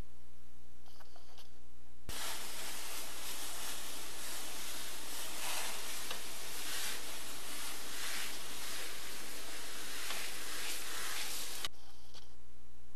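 A steady hissing rush of noise that switches on sharply about two seconds in and cuts off sharply near the end, over a faint low hum.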